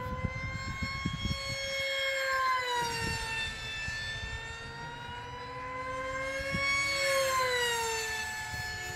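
Electric radio-controlled model jets flying overhead, their motors making a steady whine whose pitch slowly rises and falls as they pass and change throttle.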